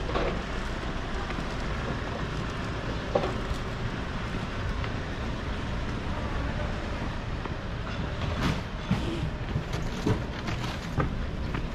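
Steady low rumble of city street noise, with a few light knocks and clicks that come more often in the second half.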